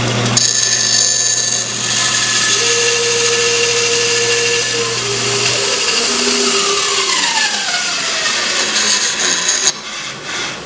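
Bandsaw running and ripping a small bark-covered log lengthwise in a sled, the blade cutting steadily through the wood. About six seconds in the motor hum stops and the saw runs down with a falling whine.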